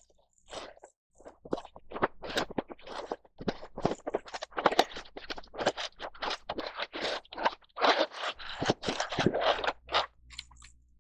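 Cardboard box and clear plastic blister tray scraping and crinkling as they are handled and the tray is slid out of the box: a dense run of irregular rustles and scrapes starting about a second in.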